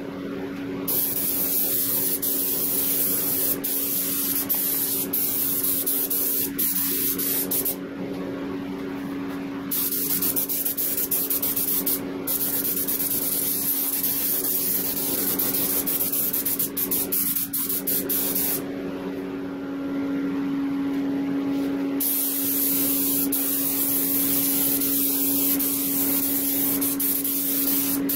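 Paint being sprayed onto a steel wheel: a steady hiss of spray that starts about a second in, stops for a couple of seconds around eight seconds in, and stops again for about three seconds around twenty seconds in, over a steady low hum.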